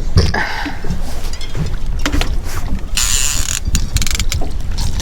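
Fishing reel drag ratcheting as a hooked walleye takes line, with a rapid run of clicks a little past three seconds in, over a steady low rumble of wind and boat.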